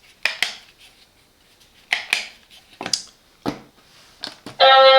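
Sharp plastic clicks, several in quick pairs, from the buttons of a Silvercrest battery-free wireless doorbell set being pressed and released. Near the end, the plug-in receiver starts playing its chime melody loudly.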